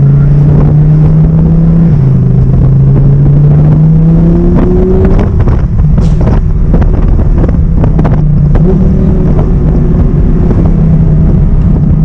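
Audi R8's V10 engine pulling hard through the gears, its note climbing and then dropping sharply at upshifts about two seconds in and near the end. A string of sharp exhaust crackles and pops comes in the middle.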